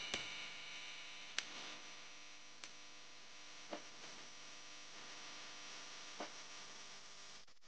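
Faint room tone: a low steady hum and hiss, broken by four soft clicks.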